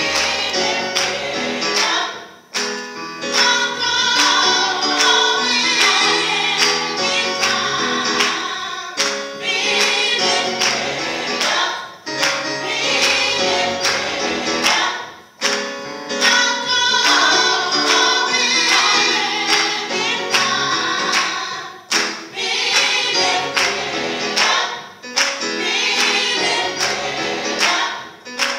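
Women's gospel choir singing with keyboard accompaniment, hands clapping along on the beat.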